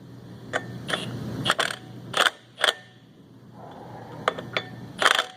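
A string of short, sharp metallic knocks, about eight, irregularly spaced: brief, light blips of an impact wrench driving the installer that presses a rear main seal wear sleeve onto a 7.3 Powerstroke crankshaft.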